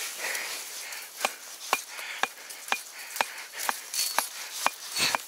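Hatchet blows on wood, most likely driving a wooden stake into the ground to anchor a trap cable. The sharp knocks come evenly, about two a second, starting about a second in.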